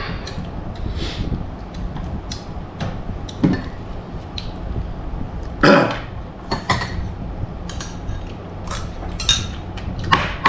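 Metal spoon clinking and scraping against ceramic bowls while eating, a string of scattered light taps and clicks. One louder short sound comes a little past halfway.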